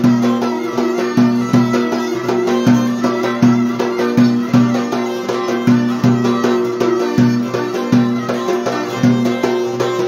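Violin and cümbüş playing a lively Turkish folk dance tune (oyun havası). The plucked cümbüş keeps a steady pulsing rhythm under the violin melody.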